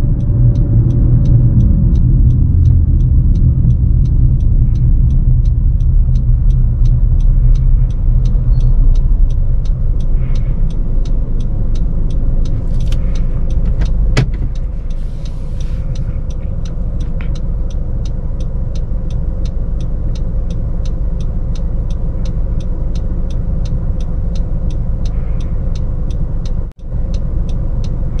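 Cabin rumble and road noise from a 2018 Honda CR-V Turbo slowing from about 44 km/h. About halfway through the car comes to a stop and the sound falls to a quieter steady hum. A faint steady ticking, two to three a second, runs underneath, and a single sharp click sounds about halfway.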